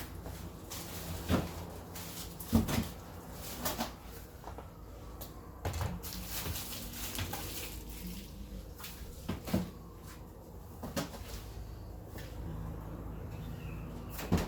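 Meat packets being packed into a fridge: scattered knocks and clunks of packages set on shelves and of fridge doors or drawers moving, the loudest about two and a half seconds in.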